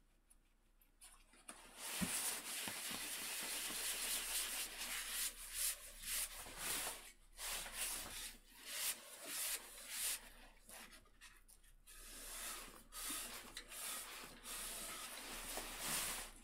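A cloth rubbing over the surface of a turned wooden plate, wiping it off in uneven strokes with short pauses.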